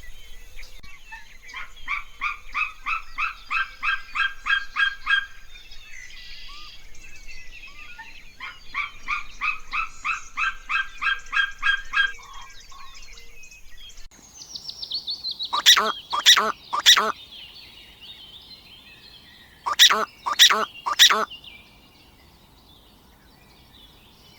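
Bird calls: a fast run of repeated chirping notes, heard twice, then a falling whistle and two loud series of three or four harsh calls a few seconds apart.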